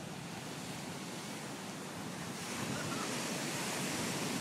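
Ocean surf breaking on a sandy beach: a steady rushing wash that swells louder a little past halfway.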